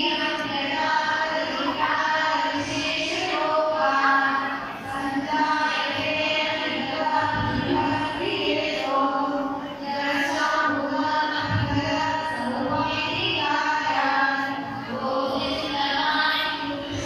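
Devotional chanting sung to music, voices carrying a melody in steady repeated phrases.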